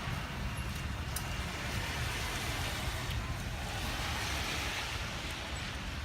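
Steady outdoor rush of a city snowstorm: wind rumbling on the microphone over a hiss of traffic on a wet street, the hiss swelling slightly midway.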